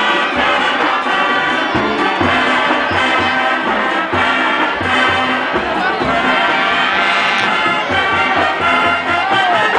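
School band brass section playing a tune with a steady drum beat underneath.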